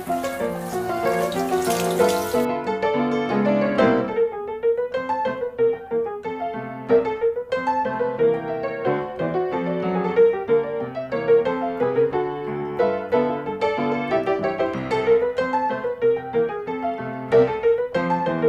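Background piano music. For the first two seconds or so, the hiss of water running from a handheld shower head lies under it and stops suddenly.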